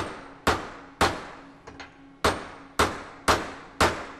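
Hammer blows on a high-carbon file welded to mild steel held in a vise: about seven sharp metal strikes roughly half a second apart, each ringing briefly, with a short pause about a second in. It is a hammer test of the weld, which holds.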